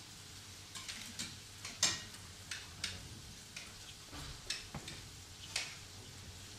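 Kitchen knife clicking against a cutting board as red-centred cooked meat is sliced, in about ten irregular taps with one sharper knock about two seconds in.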